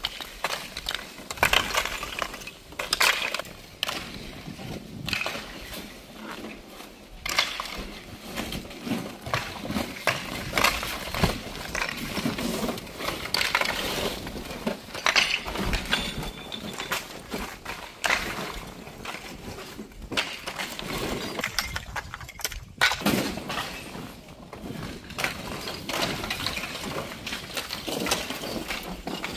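Flat natural stone slabs clattering and clinking as they are tossed from a truck bed onto a heap of stones, in many irregular hits.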